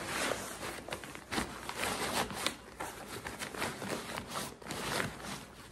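Nylon fabric rustling and swishing as a rolled-up ultralight backpacking cot is worked into its stuff sack, with a few light knocks along the way.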